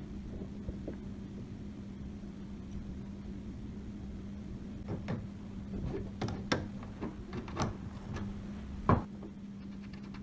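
Scattered clicks and light knocks over a steady low hum, the clicks bunching in the second half, with one louder knock near the end.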